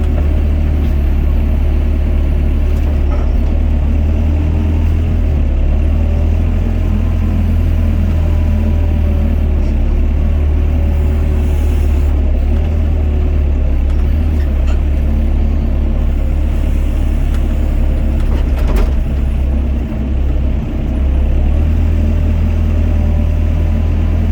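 Doosan DX55 mini excavator's diesel engine running steadily under working load, a heavy low rumble with faint steady tones above it.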